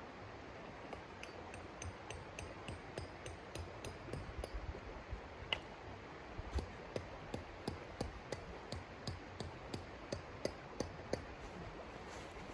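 Metal tent stake being hammered into frozen ground at the corner of a tent: a run of sharp strikes, about three a second, each with a short metallic ping. Under them runs the steady rush of the river.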